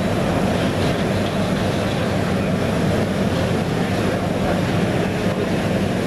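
A diesel locomotive engine idling, a steady low hum with no change in pace.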